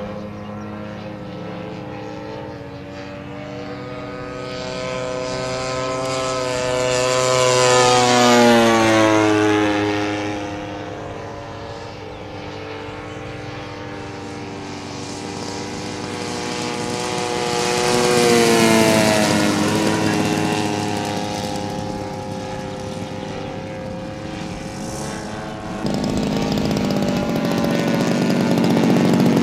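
Gasoline engines and propellers of large radio-control warbird models in flight, with more than one engine note layered together. Two close flybys swell in loudness around 8 and 19 seconds in, each with the engine pitch dropping as the plane passes. About 26 seconds in, a louder engine sound cuts in abruptly.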